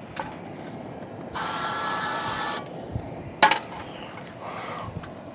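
Olive oil spray hissing out for about a second, with a couple of sharp clicks afterwards.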